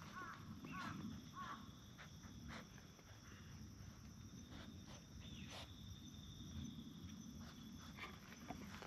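Quiet outdoor ambience: a steady high insect drone, a few short chirps in the first second and a half, and scattered faint ticks and rustles.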